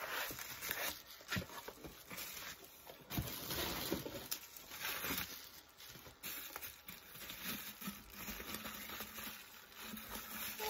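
Packaging being handled: cardboard and bubble wrap rustling, crinkling and tearing irregularly as an item is pulled out of its box and unwrapped, with a few sharp crackles along the way.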